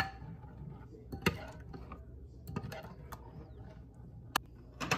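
Metal spoon stirring thick ground-rice batter in a glass bowl, with a few sharp clinks of the spoon against the glass.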